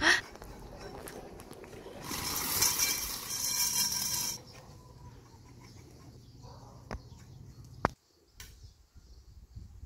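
Metal knocks and clinks from a chrome wire shelving rack being put together. Early on there are a couple of seconds of loud scraping, and later there are two sharp clicks.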